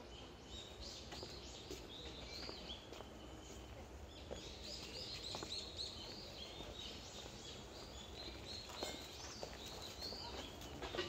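Small birds chirping over and over, high and faint, over a low steady hum of distant city noise. A few light footsteps on paving come near the end.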